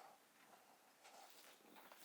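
Near silence: faint outdoor background hiss with a soft rustle about a second in.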